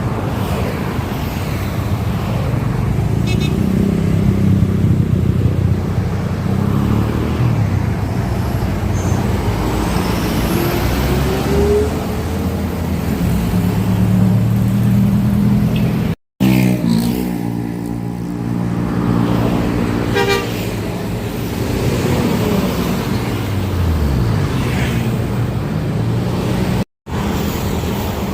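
Tour buses' Basuri telolet air horns sounding multi-note tunes over the buses' engine and road noise. The sound drops out abruptly twice.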